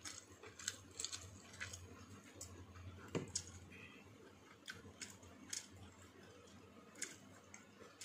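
Someone eating from a stainless steel food container: scattered light clicks and soft mouth sounds of eating, over a faint low hum.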